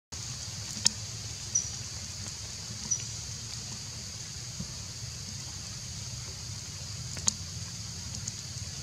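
Outdoor forest ambience: a steady high-pitched hiss over a low hum, with a few sharp clicks and two brief high chirps in the first three seconds.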